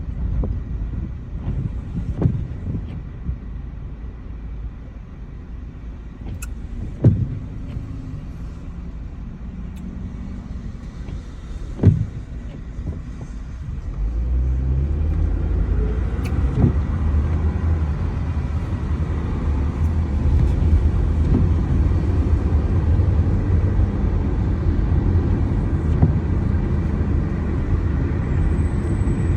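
Car driving, a steady low rumble of engine and road noise that grows louder about halfway through, with a couple of short thumps before that.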